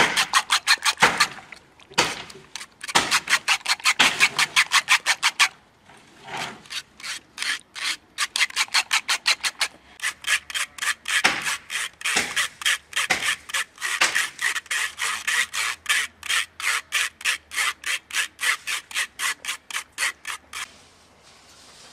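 Metal spoon scraping back and forth against a steel wire-mesh sieve as raw eggs are pushed through it, in fast rhythmic strokes about four or five a second. Loud at first, then after a short break it goes on more softly and stops about twenty seconds in.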